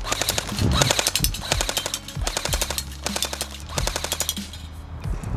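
Elite Force MP5 airsoft electric gun firing full-auto in three bursts, a rapid, even clatter from the gearbox cycling; the first burst is the longest.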